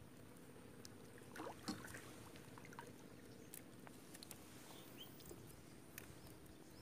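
Faint sounds of a gill net being pulled in by hand over the side of a small boat: scattered soft clicks and small water sounds, with a brief louder rustle about a second and a half in.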